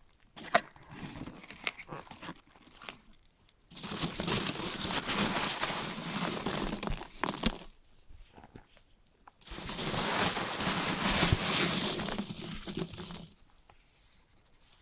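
Hands rummaging through styrofoam packing peanuts in a cardboard box: a few sharp clicks at first, then two long bouts of loud rustling and crinkling, starting about four and nine and a half seconds in.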